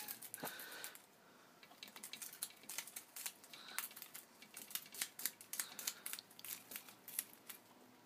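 Faint, irregular crinkling and small snipping clicks of paper as a peach-faced lovebird bites at and handles paper strips, the way lovebirds cut strips to tuck into their rump feathers.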